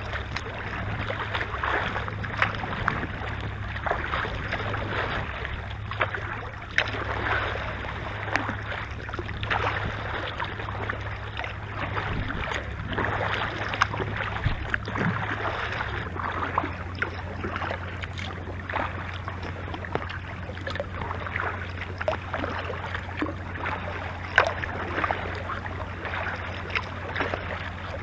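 Water splashing and lapping against a kayak as it is paddled across choppy lake water, with many small irregular splashes over a steady low rumble.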